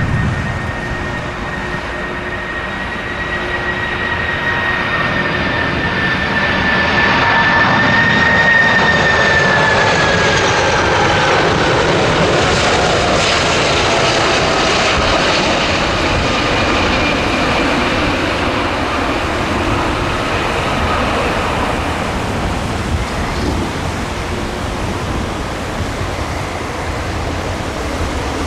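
Boeing 747-400 freighter's four turbofan engines whining and rushing on low final approach as it passes close overhead. About eight seconds in, the high whine falls in pitch as it goes by, leaving a steady rushing rumble as it flies on toward touchdown.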